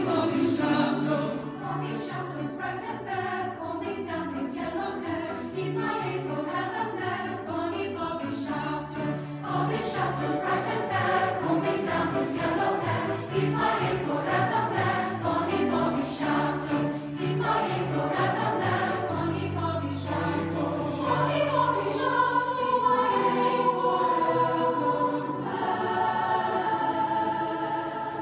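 A large mixed choir of teenage voices singing in several parts, with sustained low notes beneath shifting upper lines.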